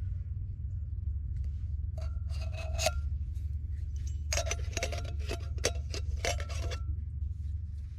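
Two spells of rapid rasping, grating strokes, a short one about two seconds in and a longer one from about the middle, with a faint metallic ring. A steady low rumble runs underneath.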